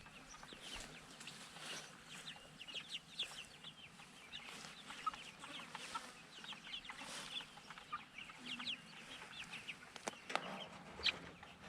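Several chickens clucking, with many short calls overlapping.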